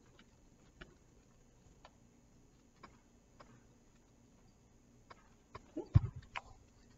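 Handling noise from a hardcover picture book being closed and turned: a few faint scattered clicks, then a short flurry of rustles and knocks ending in a dull thump about six seconds in.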